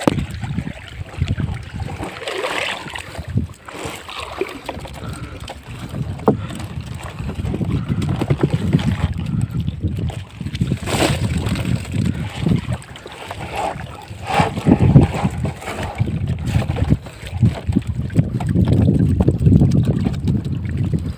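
Wind rumbling on the microphone over water splashing and sloshing around a fishing net being scooped out at a boat's side, with scattered irregular knocks.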